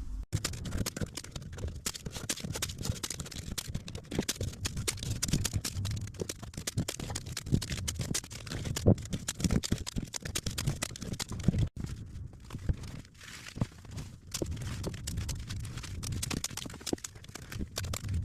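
Sped-up time-lapse audio of masking up a car's interior: a fast, dense clatter of scratching, rustling and tapping from masking tape and sheeting being handled, cut off abruptly twice.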